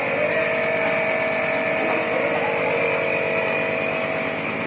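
A small engine running steadily with a constant whine, with faint voices underneath.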